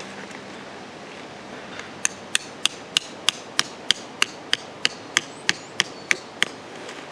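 A hammer striking metal with a ringing note: about fifteen quick, evenly spaced blows, about three a second, starting about two seconds in and stopping near the end.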